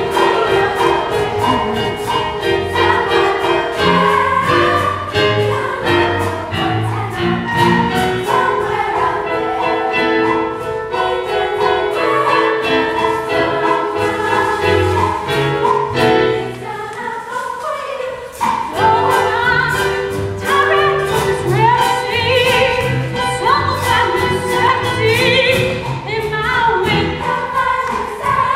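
Music: a chorus singing a show tune with instrumental accompaniment over a steady rhythmic bass line. The music thins out briefly about two-thirds of the way through, then comes back in full.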